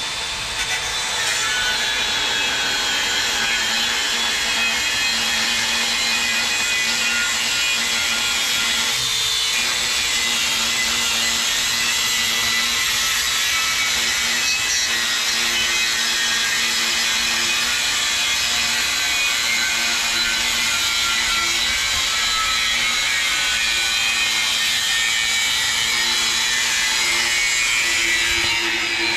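A power tool runs steadily as it cuts through the steel shell of a small hermetic pot compressor, a loud continuous grinding noise with a faint high whine.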